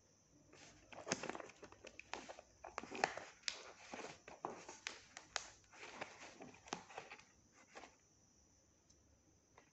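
Hands picking at and tearing the clear plastic packing tape and cardboard of a small shipping box: irregular crinkling and crackling for about seven seconds, which then stops.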